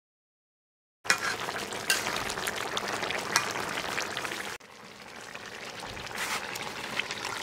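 Curry of potatoes, capsicum and meat simmering in a pan: a dense bubbling with many small pops. It starts suddenly about a second in and drops to a quieter, steadier bubbling a little past halfway.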